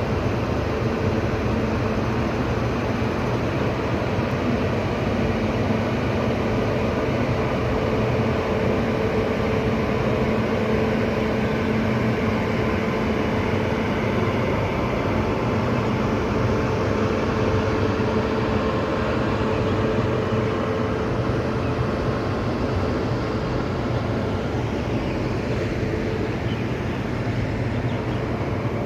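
A train's engine running steadily, a constant drone with a low hum that holds the same pitch throughout.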